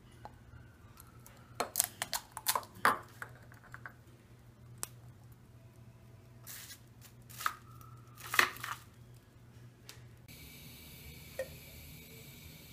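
Sharp clicks and taps of eggshells being cracked and handled over a ceramic bowl while egg yolks are separated, in scattered clusters. Near the end, a steady hiss of liquid being poured into a saucepan.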